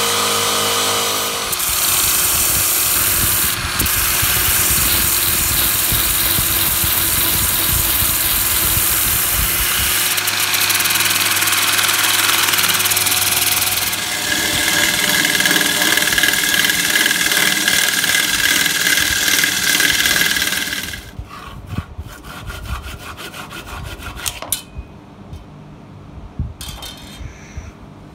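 Power sanding of a wooden bowl: an electric drill spinning a small abrasive head against the wood, then a power sanding disc against the bowl as it turns on the lathe. About 21 seconds in the tools stop, leaving quieter scattered clicks and knocks of handling.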